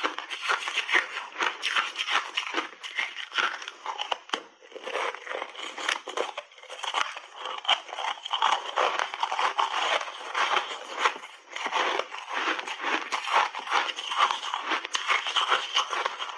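Refrozen ice balls crunching as they are bitten and chewed close to a clip-on microphone: a steady run of sharp, crackling crunches, with a brief lull about four and a half seconds in.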